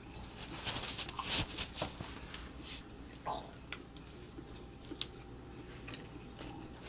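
Eating and handling food at a table: scattered rustling, small clicks and clinks, busiest in the first few seconds, with one sharp click about five seconds in.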